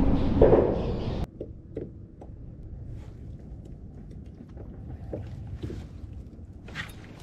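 A loud low rumble with a steady hum cuts off abruptly about a second in. After it come faint water sounds and small scattered knocks and ticks around a plastic fishing kayak.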